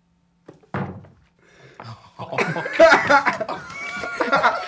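A short cough-like snort, then stifled, rising laughter from several men, growing louder from about two seconds in.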